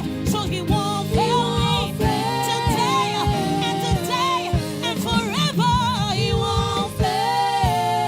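Gospel choir singing with a full band: sung melody over bass and a steady drum beat.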